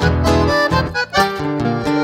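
Instrumental break of a milonga: an accordion plays the melody over acoustic guitar accompaniment, with a brief gap in the notes about a second in.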